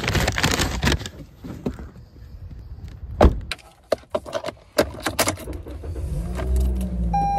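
Someone settling into a car: handling and rustling noises with scattered clicks and a sharp knock about three seconds in. About six seconds in, the car's engine starts and runs with a low rumble. A steady chime tone begins right at the end.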